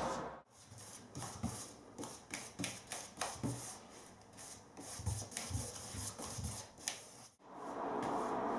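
A dozen or so short, irregular rubbing strokes of hand work on a board or wall surface, some with a soft thump.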